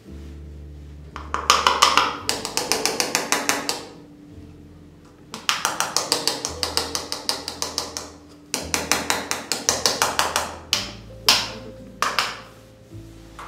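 Rapid light taps, about eight a second, in three runs of two to three seconds each, then two single knocks near the end, as black powder rocket composition is packed down into a half-inch paper rocket tube. Soft background music plays underneath.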